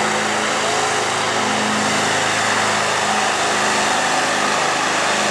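Oliver six-cylinder farm tractor engine running steadily under heavy load as it drags a weight sled down the pulling track.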